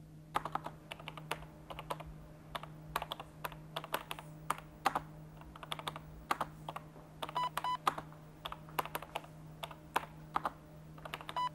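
Typing on an Apple computer keyboard: irregular keystrokes, with two short beeps about seven and a half seconds in and another near the end, over a steady low hum.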